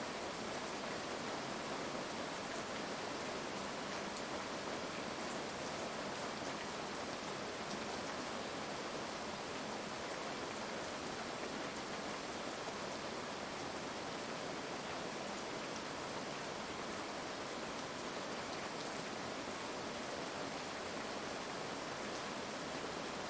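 Heavy rain falling steadily, an even hiss of many raindrops with no change in level.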